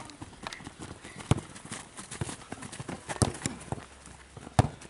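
Football players' boots running on a grass pitch and the ball being kicked: irregular thuds and knocks, the sharpest about a second in, just past the middle and near the end.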